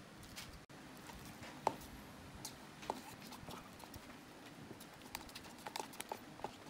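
A sauce packet squeezed out over instant cup noodles, then a plastic fork stirring the sauced noodles, with soft scattered clicks and scrapes against the cup.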